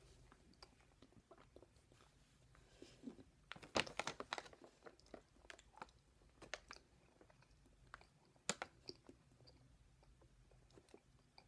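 Faint chewing of Hershey's milk chocolate drops, with scattered short mouth clicks and smacks that bunch together about four seconds in and again around eight and a half seconds.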